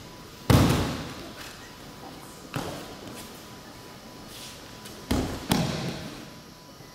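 Aikido partners hitting the tatami as they take breakfalls from throws: a loud thud about half a second in, a lighter one near the middle, and two more close together near the end, each echoing briefly in the hall.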